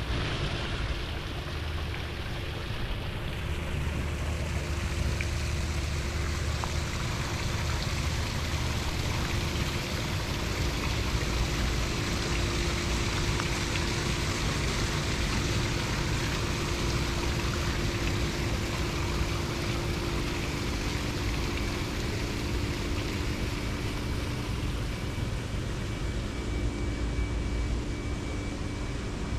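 Steady rushing noise with uneven low rumbling of wind buffeting the microphone, and a faint steady hum underneath.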